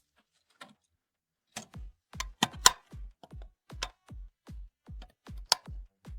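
Electronic dance music with a fast, steady kick-drum beat. The beat drops out for about the first second and a half, then comes back with a few sharp clap hits.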